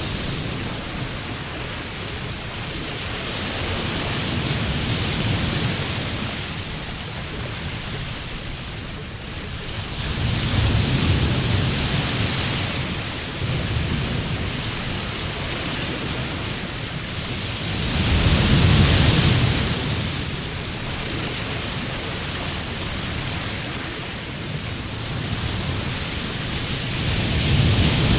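Ocean waves breaking and washing up a beach: a steady rush of surf that swells into louder surges every six to eight seconds and eases back between them.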